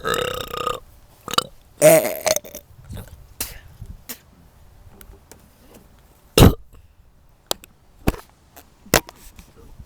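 Burping: one burp tails off in the first second and another comes about two seconds in, followed by scattered short knocks and clicks, the sharpest a thump about six and a half seconds in.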